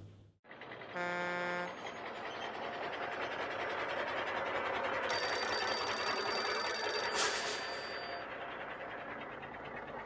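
Sound effects: a short vehicle horn honk about a second in, then a swelling vehicle driving noise, and a bell telephone ringing for about two seconds from about five seconds in.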